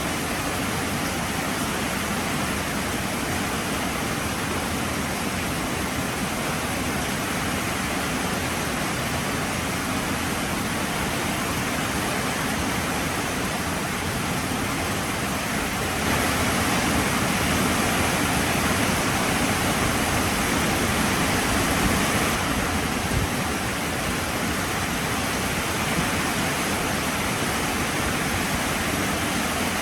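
Heavy rain falling steadily, an even rushing hiss that swells a little louder for several seconds around the middle.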